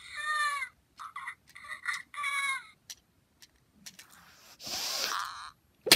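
Fingerlings toy monkey's electronic baby-monkey voice: a run of short squeaky chirps that fall in pitch over the first two and a half seconds, then a breathy hiss about a second long near the end.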